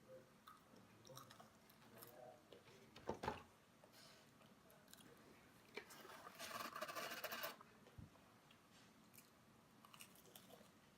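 Quiet close-up eating sounds: food being chewed and crunched. There is a sharp click about three seconds in and a longer crackly burst around six to seven seconds.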